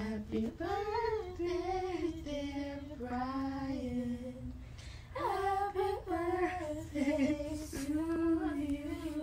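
A woman singing unaccompanied: a slow melody with long held, wavering notes and short breaks between phrases.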